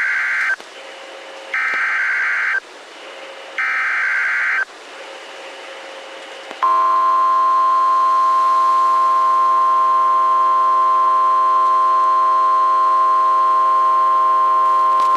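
NOAA Weather Radio emergency alert opening. First come three short bursts of the SAME digital header, rapid warbling data tones about a second apart with radio hiss between them. About two seconds later the steady 1050 Hz weather radio warning alarm tone starts and holds for about eight seconds. Together they signal the start of a severe thunderstorm warning broadcast.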